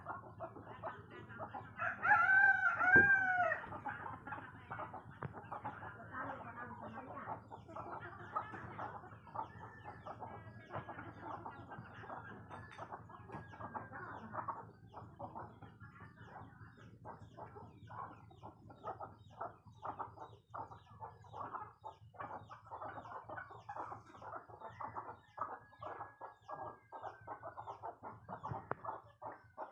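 Chickens at dawn: a rooster crows loudly once about two seconds in, fainter crows follow further off later on, and hens keep up steady clucking throughout.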